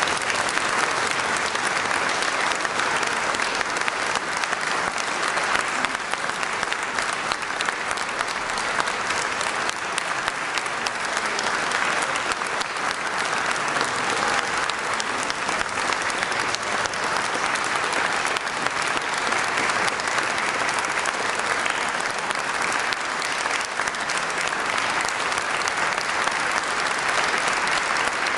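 Audience applause: many hands clapping steadily in a reverberant hall after a choral performance.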